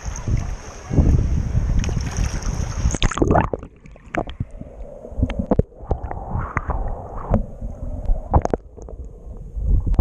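Water sloshing and wind on the microphone of a waterproof action camera held at the surface. About three seconds in the camera goes under, and the sound turns muffled underwater noise with scattered clicks and knocks of water moving against the camera.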